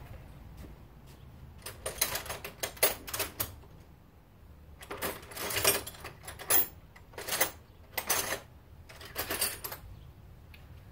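Metal tools or small parts clattering and knocking as they are handled and rummaged through, in several short bouts of rapid clicks.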